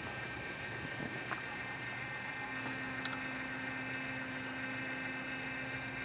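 Small electric display turntable turning a figure, its motor running with a steady hum and a couple of faint ticks.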